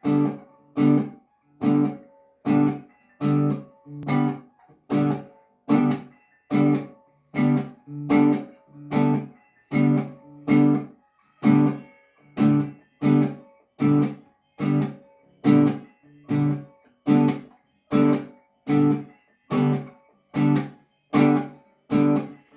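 Guitar strummed in a slow, even rhythm, about one strum every 0.8 seconds, each chord ringing and dying away before the next.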